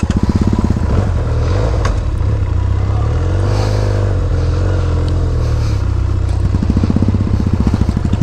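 Benelli 302S motorcycle's 300 cc parallel-twin engine running at low revs as the bike moves off slowly, its pitch rising and falling briefly about halfway through.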